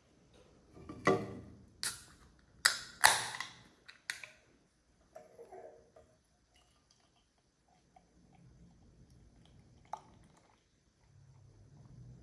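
An aluminium beer can and a glass being handled, with a few sharp clicks and a hiss as the can is cracked open. Then beer is poured from the can into a tulip glass, a low steady pouring sound that grows near the end.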